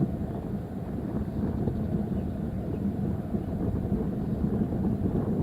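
Steady rumble of a jet airliner's engines at takeoff power, heard from a distance, with wind buffeting the microphone.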